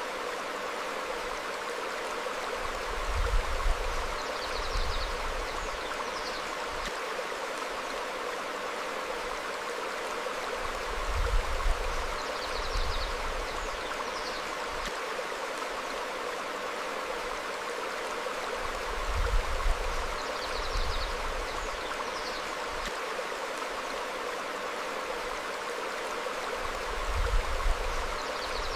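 Stream flowing steadily over rocks, with faint short bird chirps every few seconds. Deep low rumbles come in pairs about every eight seconds and are the loudest moments.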